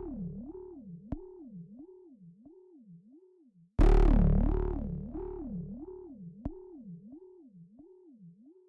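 Electronic synthesizer music: a synth tone sliding evenly up and down in pitch, about two sweeps a second. It is struck anew with a heavy bass hit about four seconds in, and each hit slowly fades away.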